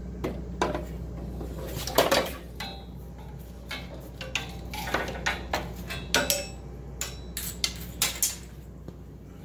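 Irregular metallic clinks and knocks from car fuel lines and parts being handled, the loudest about two seconds in, over a steady low hum.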